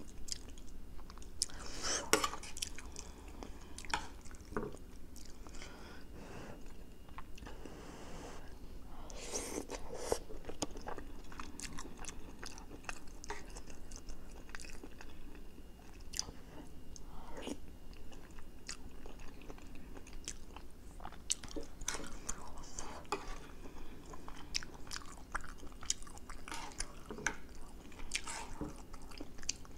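Chewing and mouth sounds of a person eating a soft egg omelette in green chili sauce. Many short, irregular clicks.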